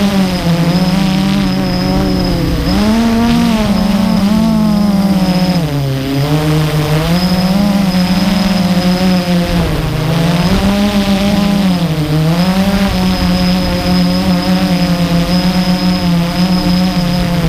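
Blade 350 QX2 quadcopter's four brushless motors and propellers whirring close up, heard from the camera on the drone itself. The pitch keeps rising and falling with throttle, dipping several times, over a thin high whine that stays steady.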